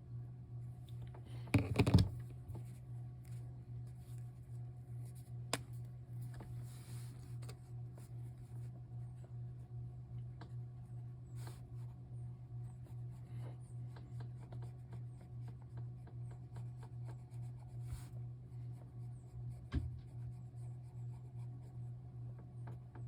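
Quiet strokes and rubbing of colouring tools on a book's paper page, with a loud bump of handling about two seconds in and a few faint clicks. A steady low hum sits underneath.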